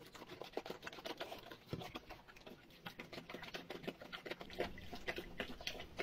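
A dog eating chunks of raw meat from a bowl: wet chewing and smacking, with a quick, irregular run of small clicks from teeth and tongue.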